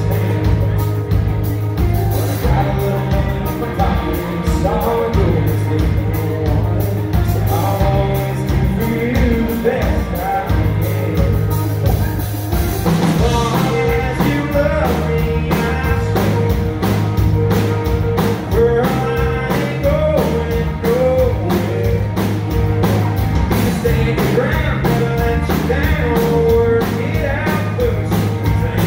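Live rock band playing: a male singer over electric guitars, electric bass and a drum kit keeping a steady beat.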